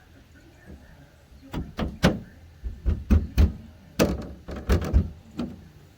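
A quick run of knocks and thumps, about a dozen in four seconds, starting about a second and a half in.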